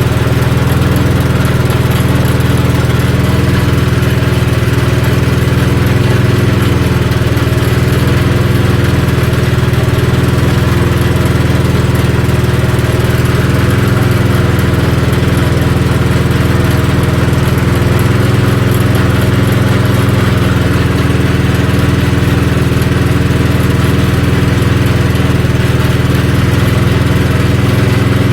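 Small rope-start petrol engine driving a peanut grinding mill, running steadily at an even speed.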